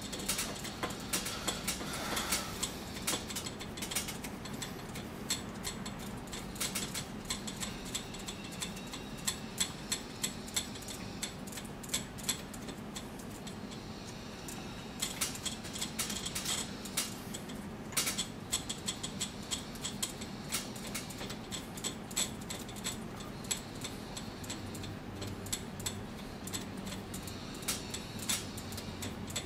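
Bowstring serving jig spun by hand around the string, winding serving thread onto it: a continuous run of irregular light clicks and rattles.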